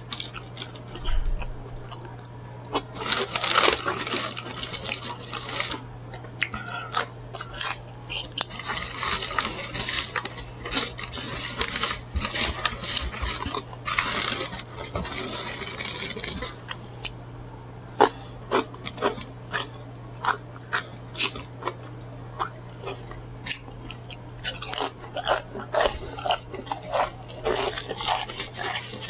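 Close-miked eating sounds: crunchy bites and chewing, with crinkling paper wrapper and small clinks, over a steady low hum.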